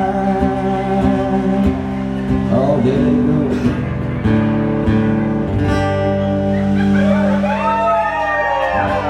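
Live country song on an amplified acoustic guitar, with sliding melody notes near the end.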